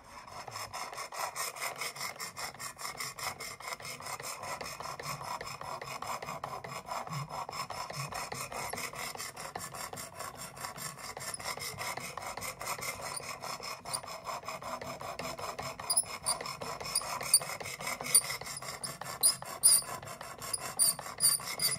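Coarse 220-grit diamond stone on a Work Sharp Precision Adjust Elite rasping back and forth across an S35VN steel knife edge in rapid, even strokes while reprofiling the bevel. From about two-thirds of the way through, sharp clicks join the strokes and are the loudest sounds.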